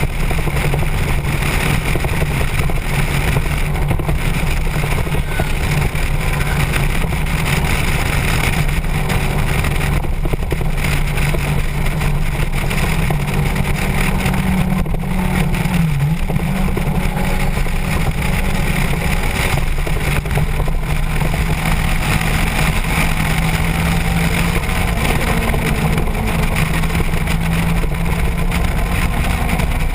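Motorcycle engine running steadily at cruising speed, with wind rushing past the microphone. About halfway through, the engine note dips briefly and then recovers.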